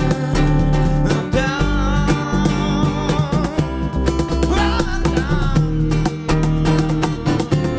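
Band music led by guitar over a steady low bass line and regular beat, with a wavering melodic line on top and no sung words.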